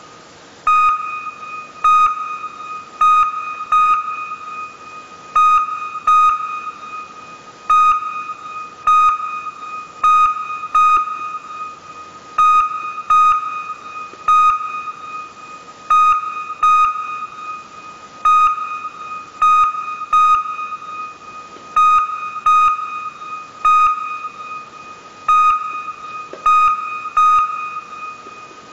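Electronic music: one high synth note hit over and over at uneven intervals, each hit sharp and then fading, like a beep or sonar ping.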